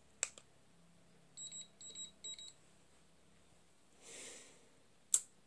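Three short electronic beeps from a small device, preceded by a click. Near the end comes a brief soft hiss and then a sharper, louder click.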